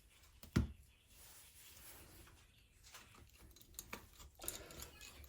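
A single dull thump about half a second in, followed by faint small clicks and rustling of hands handling tablet parts and tape on the workbench.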